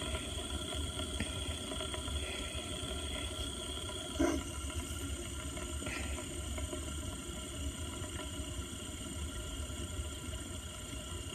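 Fidget spinner spinning freely on its bearing: a faint, steady whir with several constant tones. A short knock about four seconds in.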